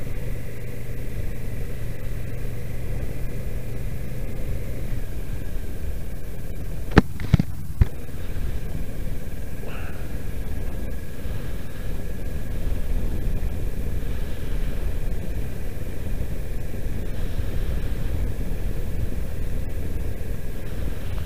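Kawasaki Versys 650's parallel-twin engine running steadily over a low rumble as the motorcycle is ridden on a snow-covered road. The engine note shifts about five seconds in, and three sharp clicks come about seven to eight seconds in.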